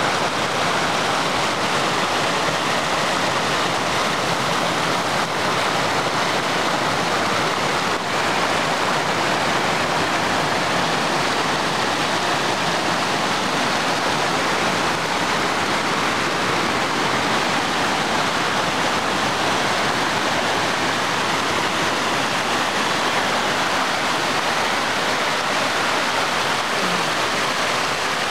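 Fast, muddy mountain stream rushing and splashing down a run of small cascades over boulders: a steady rush of water.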